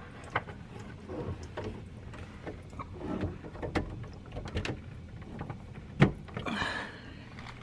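Scattered clicks, knocks and rustling from handling things under a kitchen sink, with one sharp knock, the loudest, about six seconds in.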